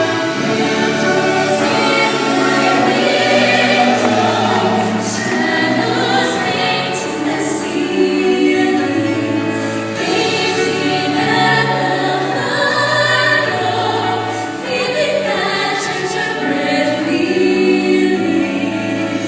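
Choir singing a melody with musical accompaniment.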